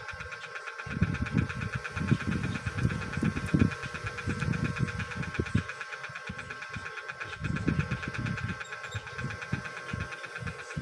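Irregular low rubbing and bumping of hands handling modelling clay close to the phone's microphone, over a steady machine-like hum with a fast pulse.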